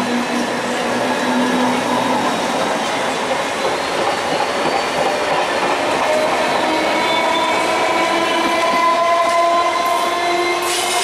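Train running past on the rails: a steady rumble of wheels on track. A low steady tone sounds for the first couple of seconds, and a few thin tones glide slowly upward through the second half.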